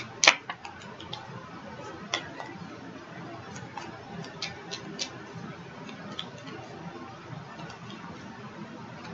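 Tarot cards being handled and shuffled: a sharp click about a third of a second in, then faint, irregular light clicks and taps over low room noise.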